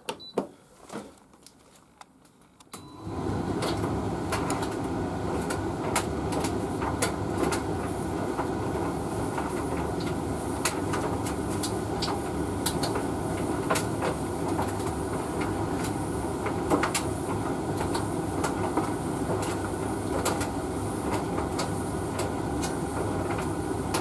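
Hoover VTV581NC vented tumble dryer starting an extra dry cycle: about three seconds in, the motor and fan come on and the drum turns with a steady rumble and hum. The load of clothes tumbles with frequent light clicks.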